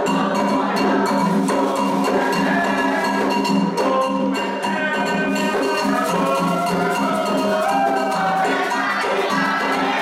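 Candomblé toque: atabaque hand drums and a metal agogô bell play a fast, steady rhythm under group singing of a chant for Logun Edé.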